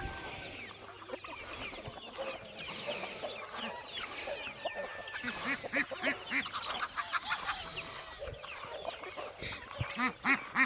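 A flock of chickens clucking and chirping, many short overlapping calls, with lower clucks joining in from about halfway through.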